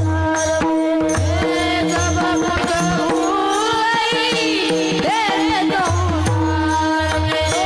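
Devotional kirtan singing: a voice sings a melody with many gliding ornaments, accompanied by regular hand-drum strokes and a steady held drone note underneath.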